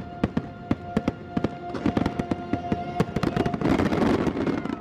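Fireworks bursting in quick succession over a music soundtrack, building near the end into a dense burst of crackle that cuts off sharply.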